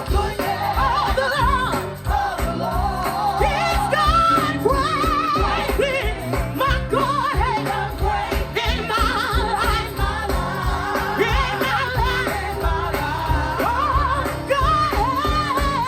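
A live gospel band and singers performing, with a lead voice singing long, wavering runs over a steady drum and bass beat.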